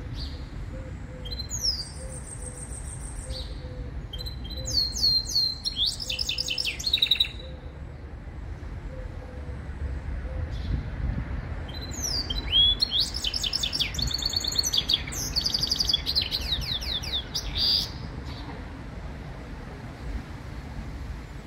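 Jilguero × canary hybrid (mixto) singing in bouts of fast, high, sweeping and trilled notes: two short phrases in the first seven seconds, then a longer one from about twelve to eighteen seconds. Beneath it runs a steady low background rumble.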